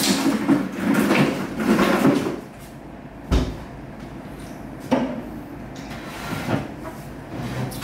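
Knocks from kitchen work: a sharp thump about three seconds in, then two lighter knocks.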